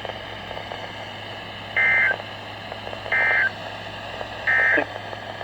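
Three short bursts of Emergency Alert System SAME data tones over a NOAA Weather Radio receiver, evenly spaced about a second and a half apart. This is the end-of-message code that closes a warning broadcast. Between the bursts there is steady radio hiss.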